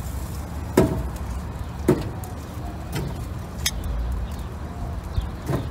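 Metal tongs clicking against a charcoal grill's metal mesh grate and a metal baking pan as grilled chicken wings are lifted across. There are about five sharp clicks, roughly a second apart, over a steady low rumble.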